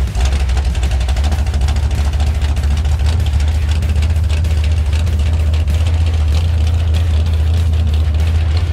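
Jet boat engine idling: a loud, deep, steady idle with an even pulsing.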